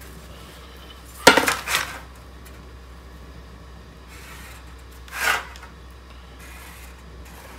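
A steel straightedge clanks and rattles onto a sheet-metal panel about a second in, with a short metallic ring. A few seconds later there is a brief scrape as a marker is drawn along the straightedge.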